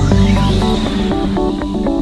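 Electronic trance-style background music: quick, even synth notes over a heavy bass, with a whooshing sweep effect crossing up and down in pitch in the first half-second, after which the bass thins out.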